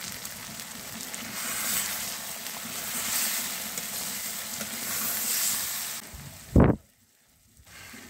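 Chicken curry sizzling and bubbling in a metal pan as a spatula stirs it, the hiss swelling in the middle. Near the end comes one short, loud, low thump.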